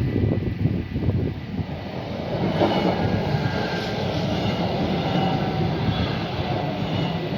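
Stadler GTW diesel multiple unit passing at speed: a heavy low rumble with a rhythmic clatter of wheels over the rails in the first second or so, then a steady rushing rail noise with a faint high whine from about two and a half seconds in.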